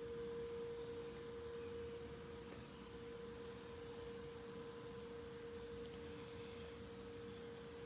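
A faint steady hum: one mid-pitched tone held without change, with a fainter higher tone above it and low background noise.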